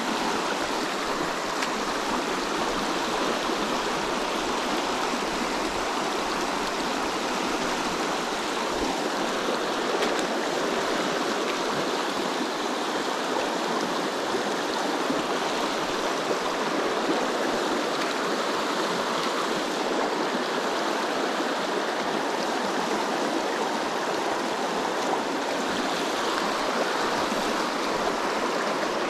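Shallow mountain stream running over cobbles and rocks in a riffle: a steady rushing of water.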